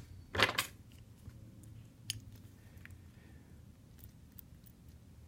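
Small parts of a Medeco Duracam lock cylinder being handled while it is taken apart: a short scrape about half a second in, then a few faint, scattered clicks.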